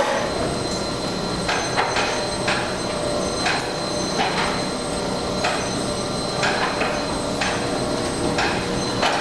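Observatory dome of the Infrared Telescope Facility rotating: the drive runs with a steady mechanical noise and a faint steady hum, with a short knock or clunk about once a second at uneven spacing.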